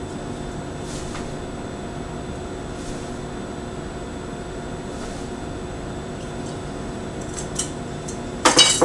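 Steady low room hum with a few faint taps, then a quick clatter of small metal palette knives being set down on the table near the end.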